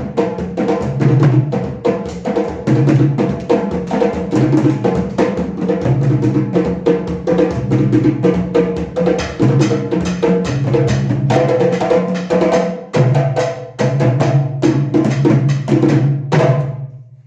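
Music with a steady drum beat and a repeating bass line, cutting off abruptly near the end.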